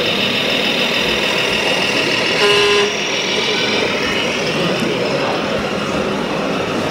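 RC model semi truck's sound-module horn sounding once for about half a second, a bit over two seconds in, over a steady high whine and hall noise.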